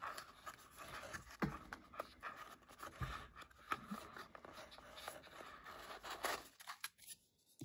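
Faint handling of cardboard packaging: fingers turning and rubbing a small card box, with scattered light taps, scrapes and rustles. The sounds fade to almost nothing near the end.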